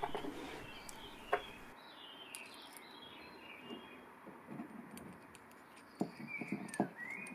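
Light clicks and taps of small steel parts being handled: a gear cutter slid onto a steel mandrel and a washer fitted over it, with a sharper tick about a second in and a cluster of taps near the end. Birds chirp faintly in the background.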